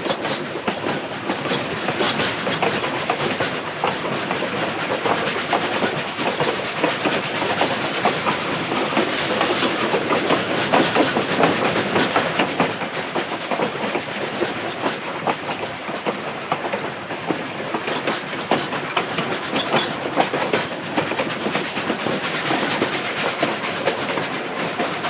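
Moving train: the wheels clatter over the rails in a dense, uneven run of clicks over a steady rumble.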